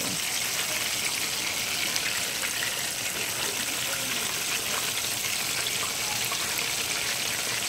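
Flour-dredged chicken wings frying in hot oil in a cast iron skillet: a steady sizzle with a fine crackle throughout.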